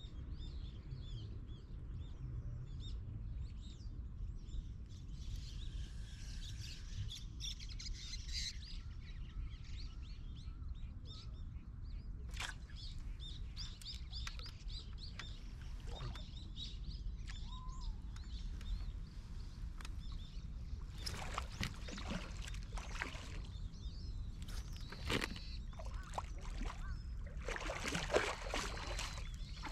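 Small birds chirping over a steady low outdoor rumble. Near the end there is a run of splashing as something thrashes at the water's surface.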